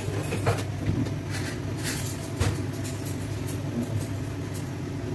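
Hands squeezing and turning wet, marinated raw chicken in an aluminium pot, giving a few soft squelches and clicks, over a steady low mechanical hum from the kitchen.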